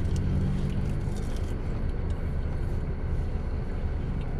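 Steady low hum of a car, heard from inside its cabin.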